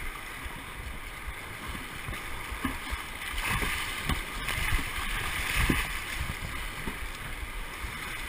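Rushing whitewater rapids around a kayak, with waves breaking and splashing over its bow. The rush grows louder through the middle, as the boat drops through the biggest waves.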